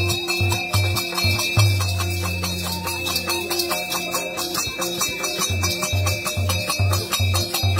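Nepali folk dance music for the Paisaru dance: a two-headed barrel drum beating a steady rhythm about three strokes a second, with a bright jingling, clashing rhythm on top and a held pipe melody.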